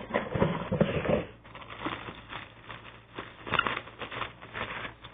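A cardboard toy box and its packaging being handled and opened by hand: irregular rustling, crackling and small clicks and taps, louder in the first second or so and again about three and a half seconds in.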